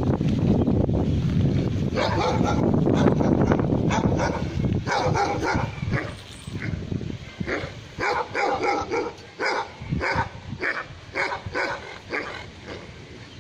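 A dog barking repeatedly in short barks, coming about two a second from about five seconds in. Under the first few seconds there is a low rumble of wind on the microphone, which fades out.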